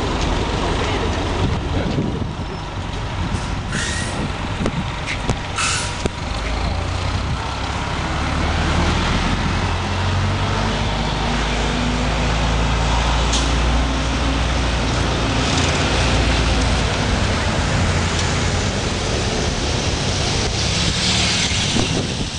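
City street traffic: a heavy vehicle's air brakes give two short hisses about four and six seconds in, followed by its engine running with a low drone for several seconds.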